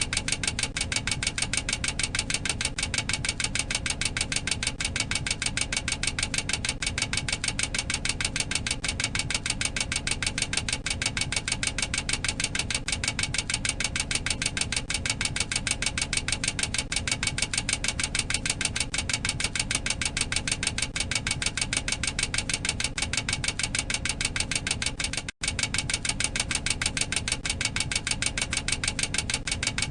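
Boeing 737-800 cockpit overspeed warning: the aural clacker sounding continuously as a rapid, even clacking, the alert that the aircraft is exceeding its maximum operating speed. It cuts out for an instant about 25 seconds in.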